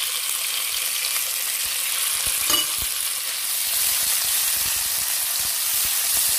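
Thin-sliced raw beef sizzling in hot oil with browned garlic, stirred about with a wooden spatula. A brief knock about two and a half seconds in.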